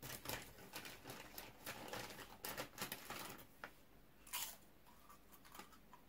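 Lay's foil crisp packet crinkling and crackling in irregular bursts as a hand rummages in it for chips, dying away after about four and a half seconds.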